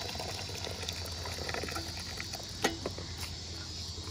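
Hot water pouring in a stream from an aluminium percolator and splashing into a collapsible silicone basin, followed by a couple of light knocks about two and a half to three seconds in.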